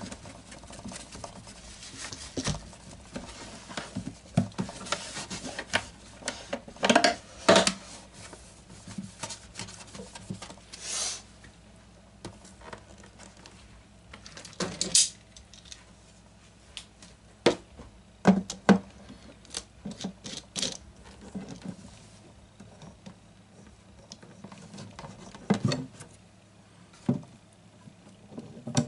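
Hands working over an acoustic guitar on a bench: scattered taps, clicks and knocks, irregular and uneven in loudness, with a short scratchy rasp near the middle, as masking tape is laid over the glued binding and an MDF clamping caul is set against the body.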